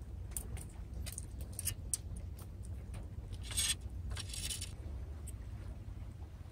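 Scattered light clicks and small rattles of fishing tackle being handled, with two short scraping bursts a little past halfway, the first the loudest, over a low steady rumble.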